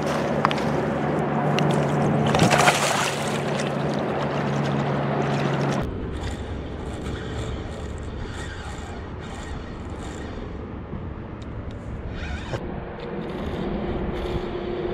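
A carp being released into shallow water, with a brief splash about two and a half seconds in, over a steady low drone. About six seconds in, the sound cuts to a rougher outdoor background with short hissy bursts.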